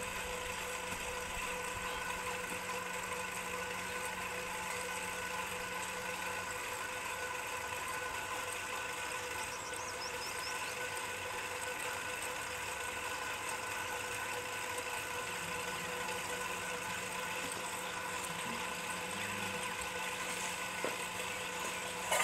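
An engine running steadily at an even hum.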